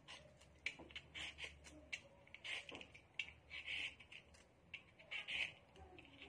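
Vegetable peeler scraping down the skin of a chayote, a series of soft, short rasping strokes at roughly two a second.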